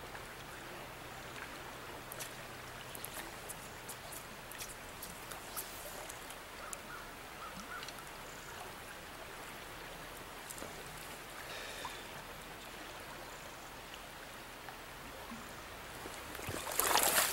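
Flowing stream water, a steady rush around a wading angler, with a louder burst of noise near the end.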